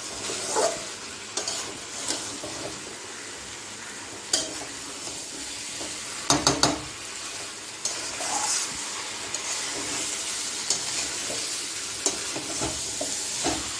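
Metal spatula scraping and knocking against a metal kadai as boiled potato pieces are stirred through frying masala, over a steady sizzle of hot oil. The clinks and scrapes come irregularly, with the loudest cluster of knocks about six seconds in.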